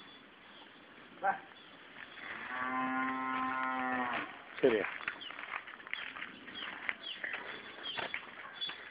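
A cow mooing once: a long, steady-pitched call of about two seconds, starting a little over two seconds in, followed by a short note sliding downward.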